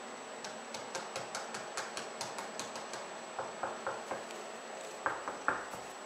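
Rapid light clicks, about five a second, then a few softer taps and two sharper knocks about five seconds in.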